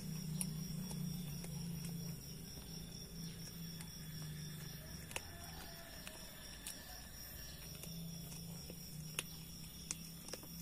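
A cat eating food off the ground, with a few scattered small crunching clicks over a low steady hum.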